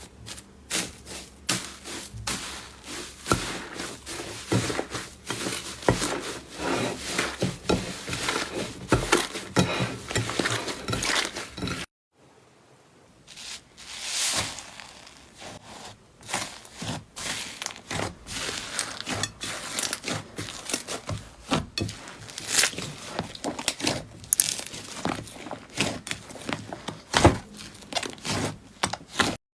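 Slime being squeezed and worked by hand close to the microphone, giving dense, irregular crackling and popping clicks. There is a short break to silence about twelve seconds in, then the crackling resumes.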